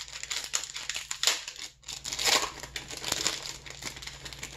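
Topps Chrome trading-card pack wrapper crinkling as it is torn open and handled, a run of rustling bursts that are loudest about one, two and three seconds in.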